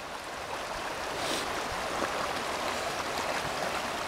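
Creek water rushing steadily over rocks in a shallow salmon stream.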